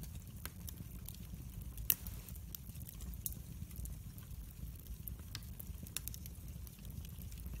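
Split wood logs burning in a fireplace: a steady low rumble of flame under frequent sharp crackles and pops, the loudest pop about two seconds in.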